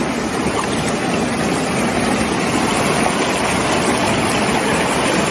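A stream rushing steadily over rocks.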